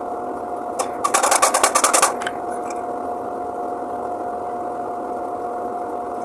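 Steady mechanical hum with one held tone, broken about a second in by a second-long run of rapid clicks, about a dozen a second.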